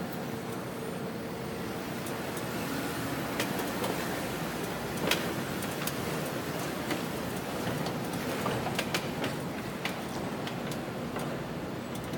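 Low, steady running of Jeep Wrangler engines driving slowly around an indoor off-road test track, under a constant exhibition-hall din. Scattered sharp clicks and knocks come through, the loudest about five seconds in.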